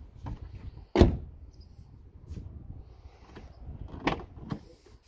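A car door on a 2006 Volkswagen Jetta is shut with one sharp, loud bang about a second in. A few lighter clicks follow near the end, like handling of the door and its latch.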